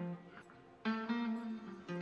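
Background music: acoustic guitar strummed chords, with a fresh chord struck just before the second mark.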